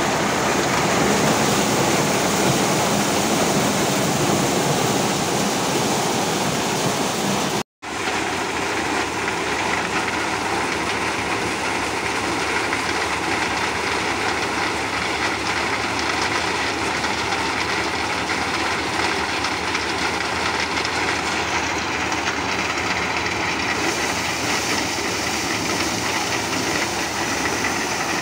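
Vodhra maize dehusking and shelling machine running at full work: a steady, dense mechanical rush, with shelled kernels pouring out of its chute in a continuous stream. The sound drops out for an instant about eight seconds in and resumes just as steadily.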